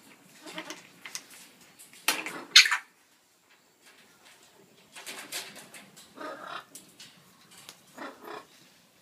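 African grey parrots calling in short, harsh bursts, the loudest about two seconds in, with a quiet spell in the middle.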